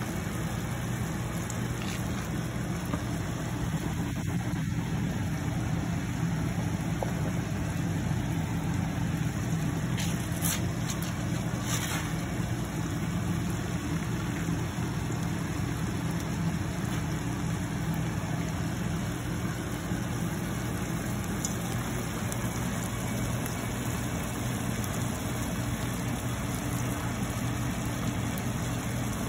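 A steady low motor hum runs under shrimp simmering in broth in a frying pan, with a few brief high clicks about ten to twelve seconds in.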